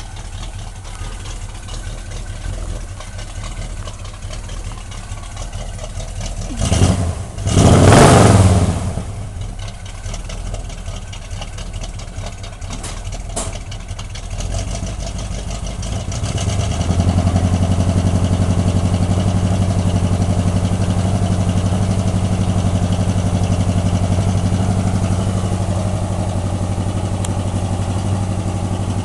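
Chevrolet Nova's engine running, heard at the tailpipe: a low hum, a loud rush of noise lasting about two seconds roughly a quarter of the way in, then from about halfway a louder, steady idle that holds.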